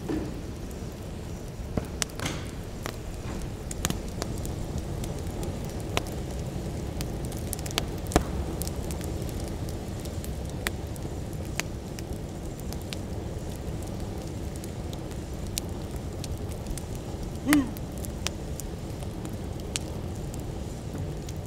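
Wood fire crackling in an open fire pit: scattered sharp pops and snaps over a steady low rumble, with one brief, louder pitched sound about four seconds before the end.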